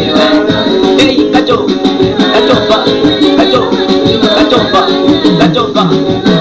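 Loud background music with plucked guitar and a steady, shaker-like beat.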